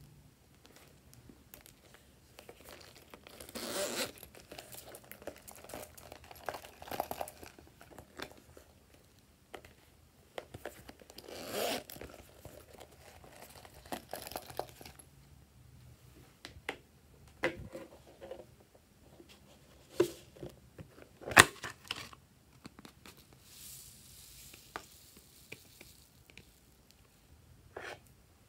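Hands handling plastic containers and packaging while tipping foam beads onto trays of slime: irregular rustling and crinkling with scattered sharp clicks. The loudest are two clicks about three-quarters of the way in.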